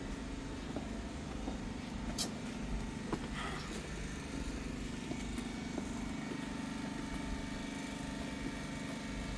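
A steady, even engine hum, like a motor vehicle idling, with a few faint clicks over it.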